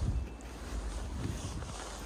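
Snowstorm wind buffeting a phone's microphone: a steady low rumble with a hiss of wind over it.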